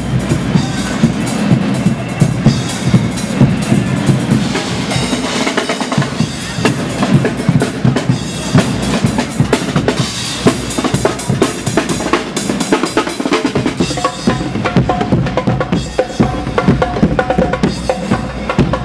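A Guggenmusik band's percussion section playing loudly while marching, with bass drum, snare drums and crashing cymbals in a driving rhythm. A few held notes join in over the last few seconds.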